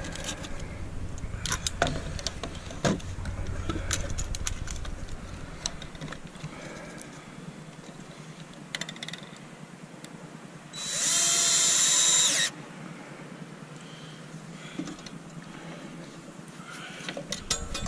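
Cordless drill runs once, a steady whine lasting a little under two seconds about eleven seconds in, the loudest sound here. Around it come scattered clicks and knocks of clamps and a metal strap being handled on the bending form.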